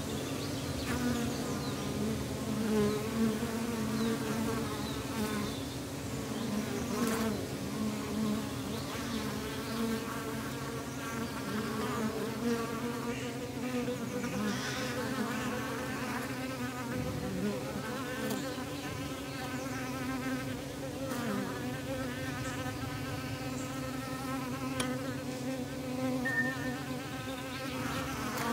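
A honeybee colony buzzing over an opened hive: a steady, wavering hum of many bees, with a few light clicks.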